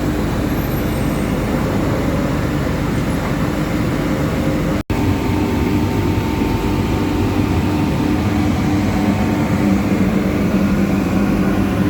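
A 2000 HP drilling rig drawworks and its machinery running with a loud, steady mechanical drone and a constant hum; a second, lower hum joins near the end. The sound breaks off for an instant about five seconds in.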